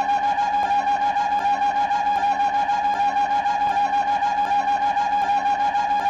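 A cartoon sound effect for the walking mouse: one steady, reedy, woodwind-like tone held on the same pitch with a fast wobble, and faint clicks about every 0.8 s.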